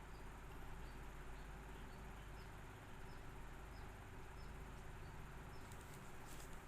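Faint, repeated high-pitched chirps from a small animal, about two a second, each a short falling note, over a steady low hum. A few clicks come near the end.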